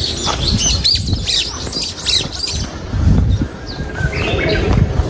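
Forest birds chirping and calling, a quick run of short high calls in the first half and a few scattered ones later. A low rumble on the microphone runs underneath and is heaviest from about three seconds in.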